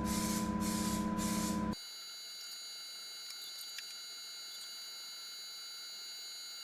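A loud, steady buzzing tone cuts off abruptly under two seconds in. Quieter, steady high-pitched electronic tones follow, like the start of background music.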